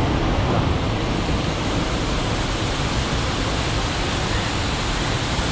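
Steady, loud rush of the Thirparappu waterfall on the Kodayar River.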